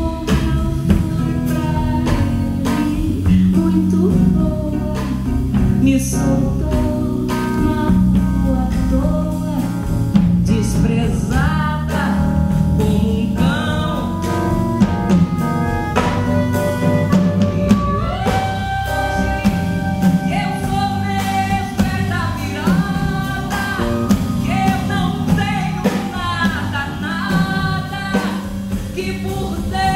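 A woman singing a Brazilian samba live into a microphone, backed by a band with bass, guitar and drums.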